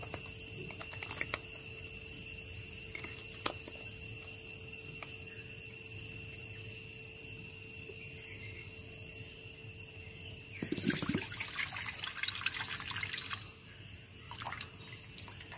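Water from a red tender coconut trickling and splashing into a steel bowl as the opened nut is tipped over it. There is a denser spell of splashing about eleven seconds in, and a few light clicks of the spoon on the husk near the start, over a steady faint hum.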